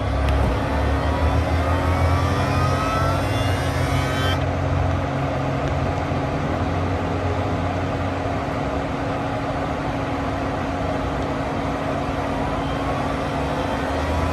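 Tesla Model X's electric air-conditioning compressor running during supercharging, its whine rising in pitch again and again over a steady hum and low rumble. This rhythmic revving occurs only while supercharging, and the owner takes it for the AC compressor.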